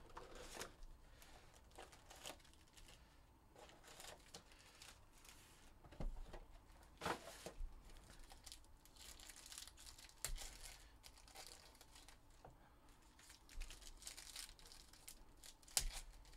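Faint, irregular crinkling and tearing of the plastic wrapping on 2021 Panini Prizm football hobby boxes and packs as they are torn open, with a few sharper rips among the rustling.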